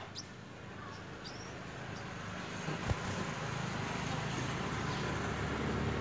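A low hum under steady background noise, slowly growing louder, with a couple of short high bird chirps in the first second or so and a single knock about three seconds in.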